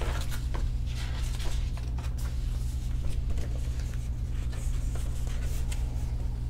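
Paper pages of a picture book being turned and handled, a run of short dry rustles and crackles, over a steady low hum.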